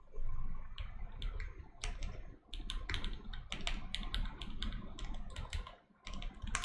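Typing on a computer keyboard: quick, uneven keystrokes with two short pauses, over a low hum.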